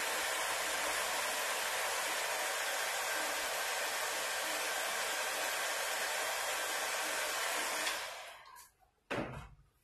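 Heat gun blowing a steady rush of hot air over freshly printed plastisol ink to pre-cure it, switched off about eight seconds in. A short thump follows about a second later.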